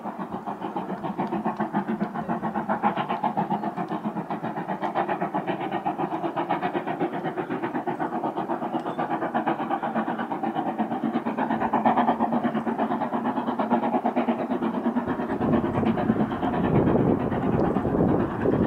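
Steam locomotive and its coaches running, with a fast, continuous rhythmic clatter that slowly grows louder. A deep low rumble joins about fifteen seconds in.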